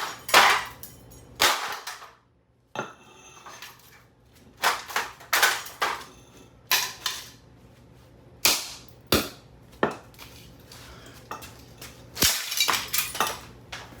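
An axe striking a Cooler Master Elite 130 mini-ITX computer case over and over: about a dozen sharp, irregular metallic blows, some in quick bunches, with a brief pause about two seconds in.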